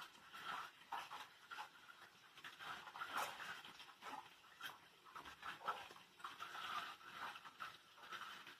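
Knife cutting through soft brown wheat bread on a bamboo chopping board: faint, irregular scraping strokes with a few light clicks of the blade against the board.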